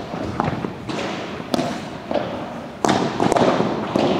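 Padel ball being hit back and forth with solid padel rackets during a rally, about seven sharp hits and bounces in quick irregular succession, each echoing briefly in the hall. The loudest strike comes near the three-second mark.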